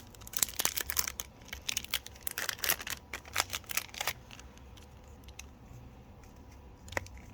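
Foil Pokémon booster pack wrapper crinkling and tearing open, a quick run of sharp crackles over the first four seconds, then quieter rustling of the pack and cards with a single click near the end.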